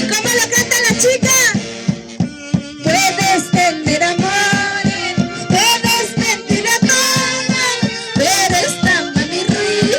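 Andean folk orchestra from the Mantaro Valley playing, with a steady beat of about three to four strokes a second under a high, wavering melody line.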